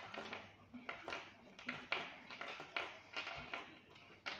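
Fingers working nylon fishing line while tying a clinch knot to a swivel: a quick, irregular run of soft rustles and small scrapes as the line is wrapped and pulled.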